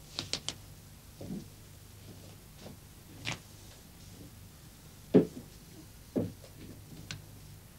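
Footsteps and handling noises in a small room as a man walks across it and opens a door: a few quick clicks at first, then scattered soft thuds, the loudest about five seconds in.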